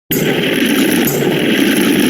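A loud, dense wash of many overlapping synthesized sound effects, running together into a steady, engine-like noise. It cuts in abruptly after a brief silence, and its high end shifts slightly about a second in.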